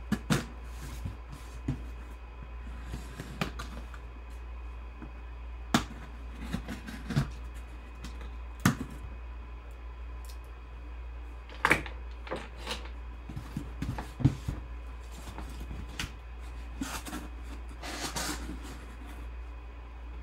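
Cardboard box being handled and opened by hand: scattered taps and knocks on the box, with a longer stretch of scraping cardboard a few seconds before the end as the flaps are folded back, over a steady low hum.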